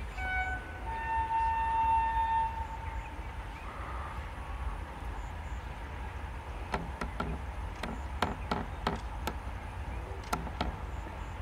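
Electric locomotive horn on an approaching goods train: a short note, then a longer, slightly higher note held for about two seconds, over a steady low rumble. A few seconds later comes a string of sharp, irregular clicks.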